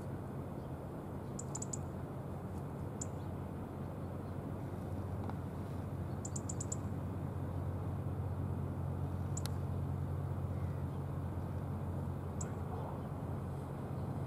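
Steady low drone of a passing K130 Braunschweig-class corvette's machinery across the water, with a few short, high chirps scattered over it, some in quick runs of three or four.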